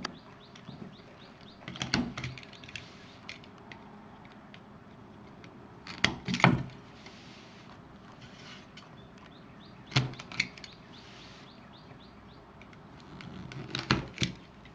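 A red plastic tool pressed and levered along the cut around a wooden gear to punch it out of its sheet, giving sharp clicks and cracks of the wood. They come in four short clusters about every four seconds, the loudest about six and a half seconds in.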